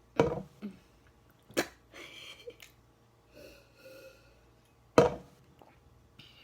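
A person sneezing hard twice, about four seconds apart, with a shorter sharp burst between and faint sniffly, wheezy breaths in the gaps. It is a reaction to the chilli heat of very spicy ramen.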